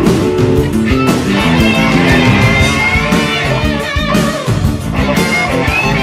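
Rock music with guitar, no singing.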